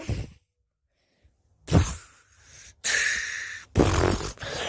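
Cartoon train-crash sound effects for a derailment: a sudden crash about two seconds in, then a noisy rush with a second crash near the end.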